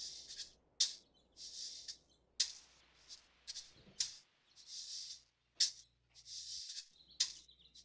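Maracas played through electronics: a sharp shake roughly every second and a half, with softer hissing swells of rattling between them, over a faint low hum.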